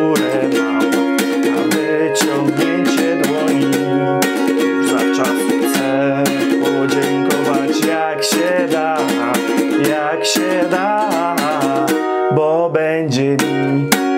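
Ukulele strummed along with a pop recording of the song, with singing, a bass line and a steady beat.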